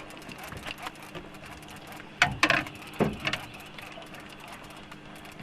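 A quick run of sharp knocks and clatters a little over two seconds in, lasting about a second, over a faint steady hum.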